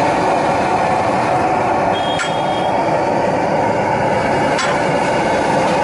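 Steady loud rumbling noise of a roadside street-food stall and the street around it, with two sharp metallic clinks about two and four and a half seconds in.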